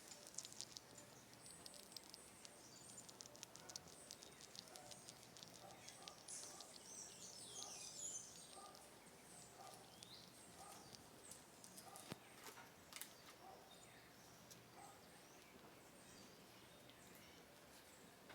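Faint rapid clicking of a red-tailed squirrel gnawing at its food, thickest over the first several seconds and returning briefly later. Faint high bird chirps come in around the middle.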